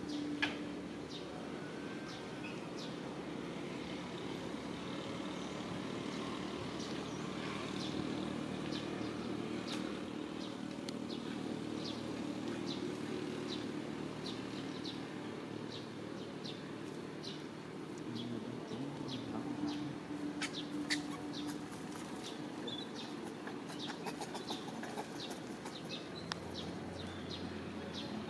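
Outdoor forest ambience: birds chirping in many short, high calls over a steady low background hum.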